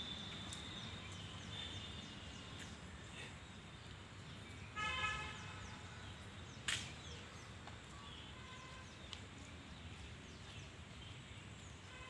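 Domestic goose giving one short honk about five seconds in, over a steady outdoor background with faint high chirping. A single sharp click follows a second and a half later.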